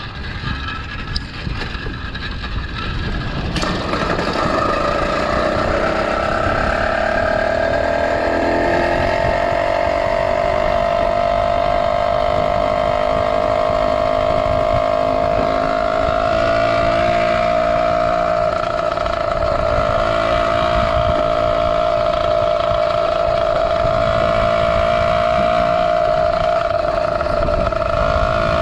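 Two-stroke Zeda 80 motorized-bicycle engine running under way. It climbs in pitch over the first few seconds, then holds a steady high drone, with wind rumbling on the microphone.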